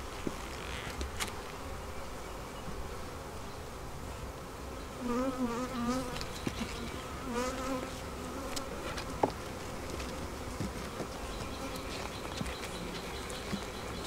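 Honeybees buzzing over an open hive: a steady hum, with single bees passing close twice, around five and seven seconds in, their wavering drone louder for a moment. A sharp click about nine seconds in, from the metal hive tool working the wooden frames.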